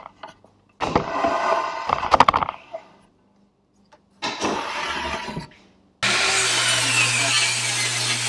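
Table saw running with a steady hum, ripping the rounded edge off a 2x6 board along the fence; it comes in abruptly about six seconds in. Before that come two short bursts of scraping and knocking as the board is handled.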